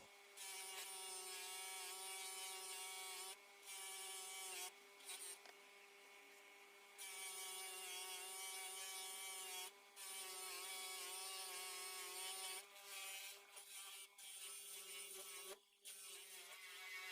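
Electric bench wheel machine running with a steady whine, with some rubbing of metal against the wheel; it breaks off abruptly a few times.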